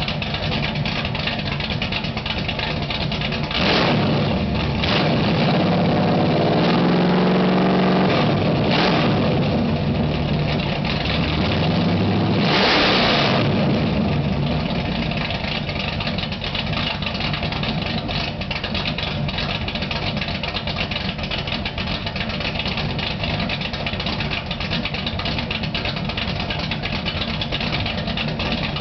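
Pontiac GTO V8 idling through an exhaust fitted with electric cutouts. It is revved three times in the first half, the middle rev held longer, then settles back to a steady idle.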